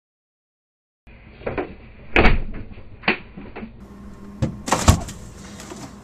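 Knocks and clicks of a refrigerator door and the things inside it being handled as the fridge is opened, the loudest thud coming near the end, over a faint low hum.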